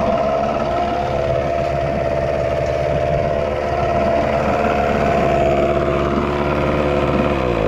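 Yamaha 6 hp two-stroke outboard motor running steadily with its leg in a test drum of water, the exhaust churning the water. Its pitch drops just before the end.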